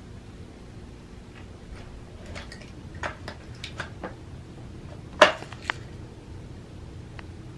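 Plastic treat-dispensing cat feeder clattering, with dry kibble rattling inside it, as a cat noses and paws at the dispenser to work crunchies out. It comes as a run of short clicks, with the loudest knock a little past the middle.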